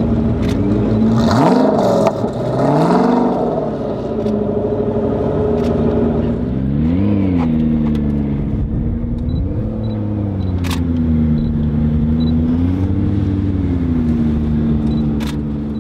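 McLaren P1's twin-turbo V8 running at low speed, with several short blips of the throttle that raise and drop the engine note.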